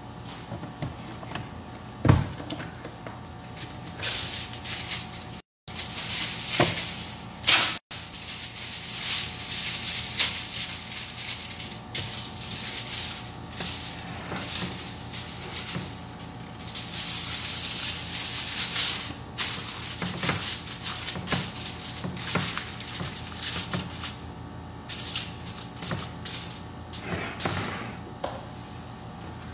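Aluminium foil crinkling and rustling as it is pulled off, torn and pressed over a glass baking dish, with a few light knocks on the counter.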